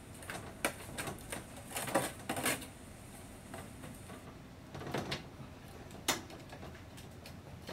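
A kitchen utensil knocking and scraping against a pan as roasted turkey wings are turned over: a handful of short, separate clicks and clatters, a cluster in the first couple of seconds and two more sharp knocks later on.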